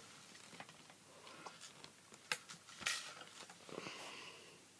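Scattered light clicks and knocks from handling an airsoft M16 and a screwdriver while taking off its tactical rail. Two sharper clicks come about two and three seconds in.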